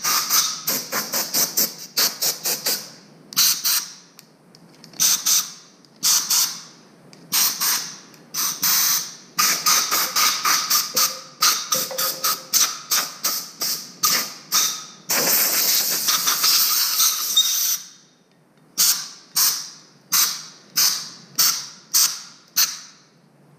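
Compressed-air blow gun hissing in many short, rapid blasts as it blows debris out of a wheel hub's bolt holes, with one longer blast of about two and a half seconds past the middle.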